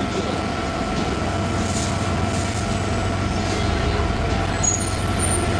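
Steady outdoor street-market background noise with a constant low mechanical hum and a faint steady whine; no single event stands out.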